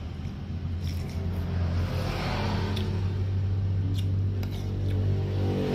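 A steady low rumble with a few light, sharp clinks and scrapes of a metal spoon against an enamel soup bowl as meatballs are scooped from the broth.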